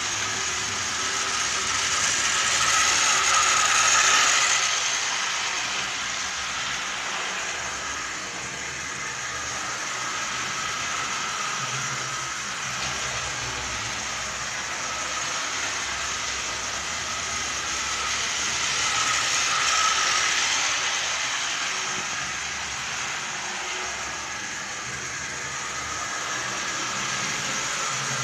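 H0-scale model train running on the layout track: the small electric motor and gears whirring, with the wheels rattling on the rails. The sound swells louder twice, a few seconds in and again about two-thirds of the way through.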